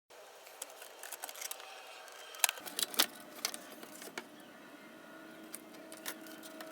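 Small plastic keyboard parts of a Dell AT-101W being handled and fitted back into place: a scatter of light clicks and taps, with a cluster of louder clicks about two and a half to three seconds in.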